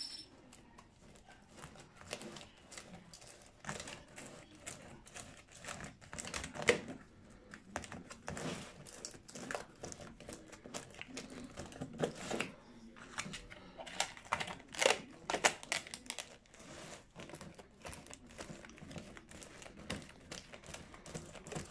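Thin clear plastic lids being fitted onto disposable aluminium foil pie pans: irregular crinkling and clicking of plastic and foil as the rims are pressed together.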